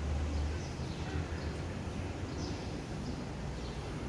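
Outdoor ambience: a steady low rumble, louder for the first half second, with short high chirps of small birds recurring about once a second.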